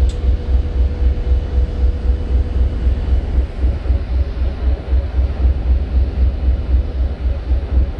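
Deep, steady rumble of a Freshwater class ferry's engines heard from inside the passenger cabin, with an uneven throb in the bass. A faint steady hum sits over it and fades out about halfway through.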